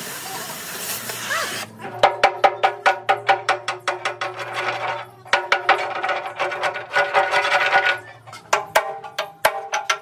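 Hammer blows on a chisel held against the edge of a steel road-roller drum: runs of quick metallic strikes, about five a second, each ringing, with short pauses between runs. For the first second and a half, an oxy-fuel cutting torch hisses, then cuts off suddenly.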